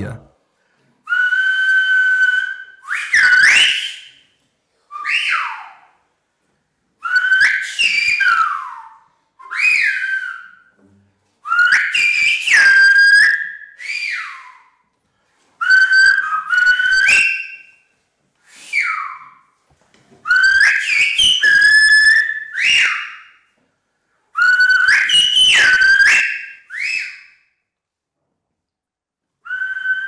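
A man whistling Silbo Gomero, the whistled language of La Gomera, with fingers in his mouth. Loud whistled phrases with pitches that glide and step up and down come one after another with short pauses between them, in the call form used to hail people by name.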